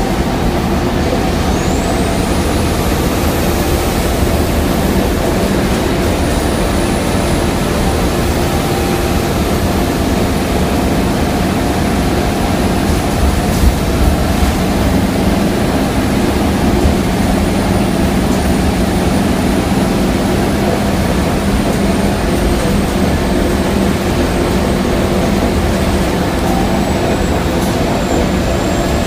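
Scania KUB Euro V city bus heard from inside the passenger cabin while cruising at steady speed: a steady engine drone and road rumble, with a faint high whine that rises over the first few seconds and then holds. A couple of brief rattles about halfway through.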